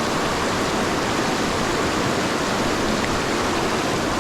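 Steady rushing of creek water running through shallow rapids.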